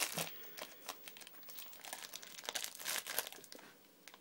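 Plastic dog-treat packet crinkling and rustling in irregular crackles as a dog tears at it to get at the treats.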